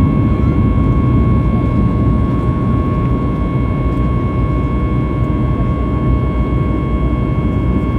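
Cabin noise of a Boeing 737 MAX 8-200 in its climb after takeoff: a steady, loud rumble of the CFM LEAP-1B engines and airflow, with a thin steady whine over it.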